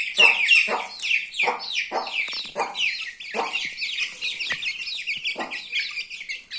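Parrot-beak Aseel chicks peeping in a dense jumble of short, high, falling peeps, with lower clucks about every half second to second, fewer after the halfway point.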